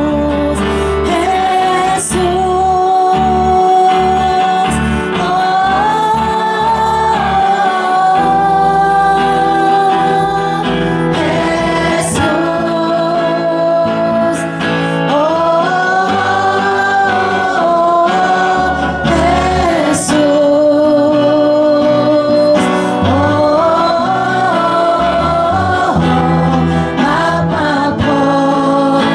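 A congregation of men and women singing an old gospel hymn together in Ayangan Ifugao, with long held notes.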